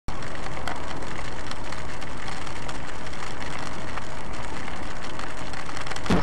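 Steady road noise inside a moving car driving in the rain, with the windshield wipers running. A few faint ticks run through it, and it grows louder right at the end.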